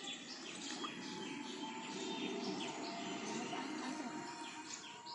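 Birds chirping over and over in short falling calls, over a low, rough, steady noise.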